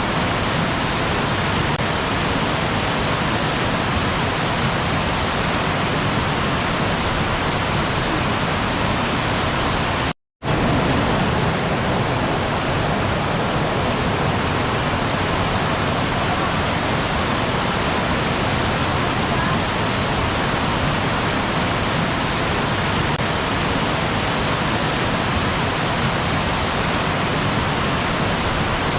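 Waterfall: a steady, even rush of falling water. It cuts out completely for a split second about ten seconds in, then carries on as before.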